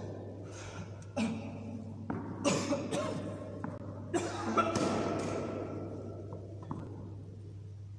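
Tennis balls knocking and bouncing in an indoor tennis hall: about eight sharp, echoing knocks in the first five seconds, some followed by a brief ringing tone, then quieter.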